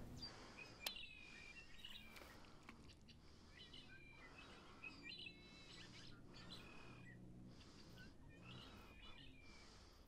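Faint bird calls: short chirps that come in a few bouts a few seconds apart, over a quiet background hiss.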